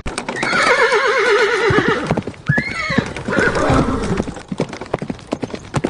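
Horse whinnying: one long call with a fast trembling pitch that falls away, then a shorter call about two and a half seconds in and fainter ones after, with sharp knocks throughout.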